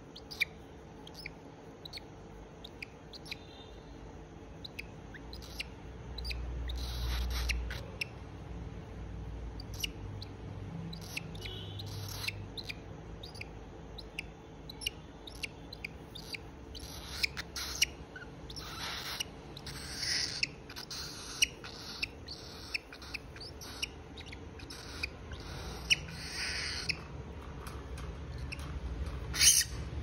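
Young cockatiel making short, scratchy calls at irregular intervals, with scattered small clicks.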